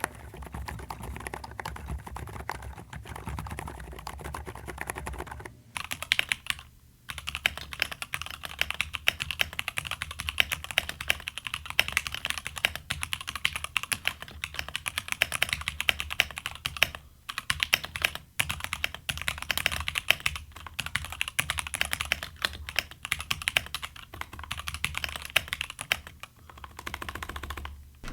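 Fast continuous typing on mechanical keyboards. For the first five seconds or so it is an Epomaker RT100 with a deeper sound. After a short pause it is an Epomaker Shadow X, whose keystrokes are brighter and clackier.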